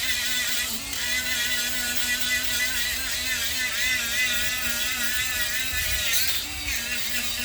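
An electric handheld power tool's motor running steadily under load, its pitch wavering slightly, with a rasping hiss over it.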